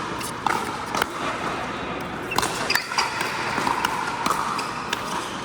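Sharp pocks of pickleball paddles hitting a hard plastic ball, a handful of times at uneven spacing, over the steady din of a large indoor hall.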